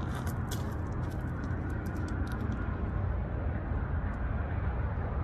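Steady low outdoor rumble, with a few faint clicks in the first couple of seconds.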